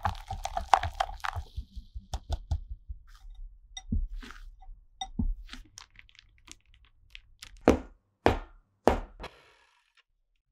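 A wire whisk beating egg-yolk batter in a glass bowl, rapid strokes rattling and ringing against the glass for about a second and a half. Then a scattering of light kitchen taps and clicks, and three louder knocks near the end.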